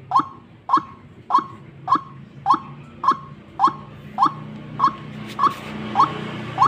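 White-breasted waterhen (ruak-ruak) calling: a short rising note repeated evenly, a little under two a second. A low steady hum grows beneath it from about the middle on.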